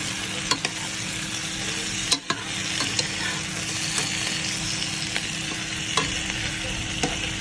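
Beef, potato and onion pieces sizzling as they fry in a pot, while a metal spoon stirs them and clinks against the pot now and then.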